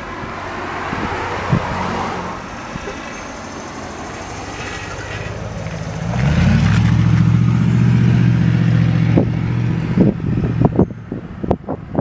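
Road traffic: a car passes, then a motor vehicle's engine sets in with a steady low hum about halfway through, the loudest sound. A few sharp knocks come near the end.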